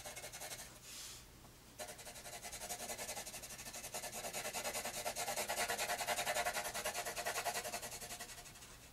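Pencil graphite rubbing on paper in rapid back-and-forth shading strokes, several a second, made with the side of the lead. The strokes pause briefly about a second in, then carry on.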